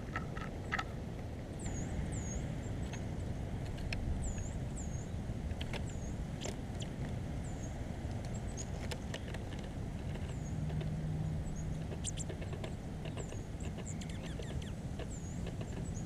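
High, thin bird call notes, often two in quick succession, every second or two, with scattered sharp clicks from a tufted titmouse picking over birdseed, over a steady low rumble.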